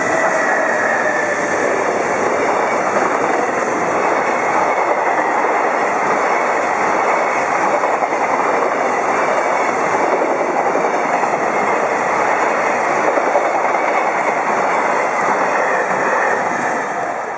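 High-speed container freight train hauled by a JR Freight EF210 electric locomotive passing close by: a loud, steady rush of steel wheels on rail, easing off near the end as the train clears.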